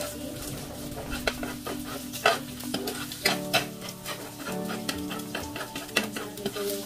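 Scrambled eggs sizzling in hot oil in a frying pan, stirred and broken up with a spatula that clicks and scrapes against the pan many times.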